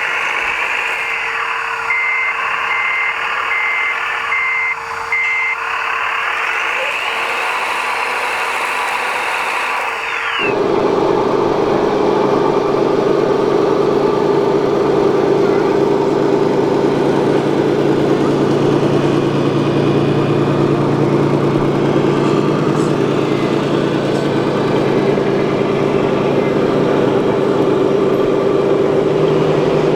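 Radio-controlled scale construction machines at work: whining, gliding electric drive and gearbox noise with a reversing beeper sounding about five times a couple of seconds in. About ten seconds in the sound changes abruptly to a steady, louder, lower engine-like drone.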